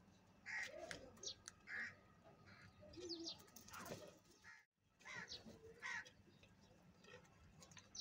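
A group of house crows cawing, several short harsh caws spaced through, with a brief dropout of all sound about halfway.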